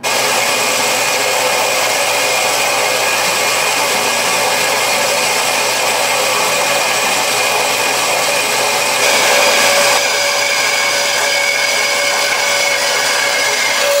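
Horizontal metal-cutting band saw cutting through 2-inch, 3/16-inch-thick steel angle iron. It runs loud and steady, with a few steady high tones over the cutting noise.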